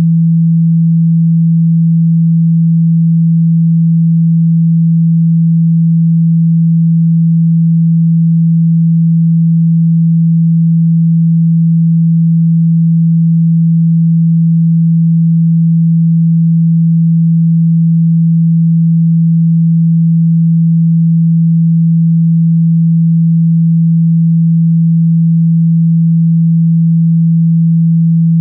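A single low-pitched pure sine tone, held steady without any change: a water-ejection hum meant to vibrate water out of a phone's speaker grilles.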